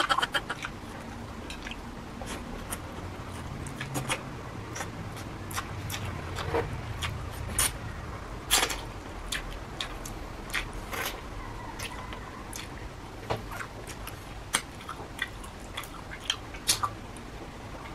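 A person eating shrimp by hand, close to the microphone. Irregular wet clicks and smacks of chewing are heard, with the small crackles of shrimp shells being peeled off with the fingers.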